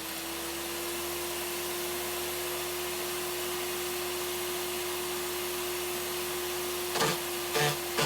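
Electric garden shredder's motor running steadily with a constant hum and a whirring rush. A couple of brief sharper noises come near the end.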